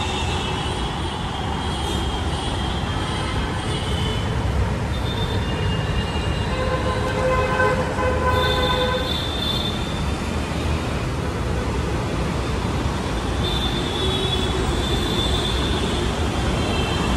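Steady city street traffic noise with a low rumble of passing vehicles. Car horns sound twice, about seven seconds in and again near the end.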